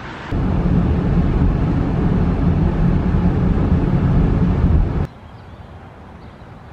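Steady road noise inside a car's cabin driving on a wet highway: a low drone of tyres and engine. It cuts off suddenly about five seconds in, giving way to a faint outdoor background.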